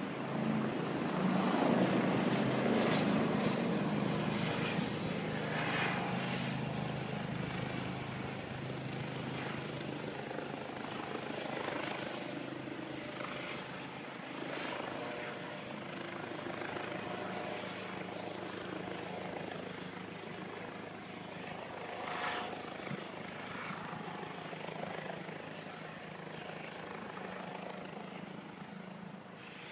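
Police helicopter flying overhead with a steady rotor and engine hum, loudest about two seconds in and then slowly fading as it moves off.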